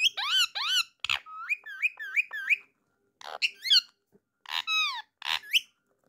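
Indian ringneck parrot calling in a run of short whistled chirps, several rising in quick succession, mixed with harsher squawky notes, in three bursts with brief pauses between.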